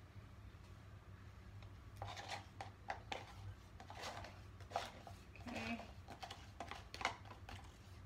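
Light, irregular clicks, taps and rubbing of objects being handled, starting about two seconds in, over a low steady hum.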